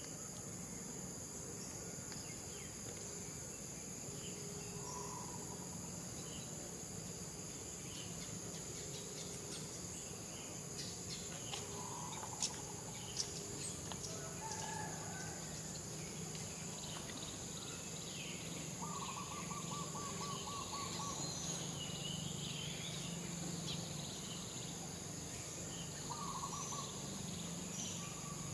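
Forest ambience: a steady, high-pitched insect drone made of several constant tones, with occasional short animal calls, one quick trill about two-thirds of the way through, and two sharp clicks a little before halfway.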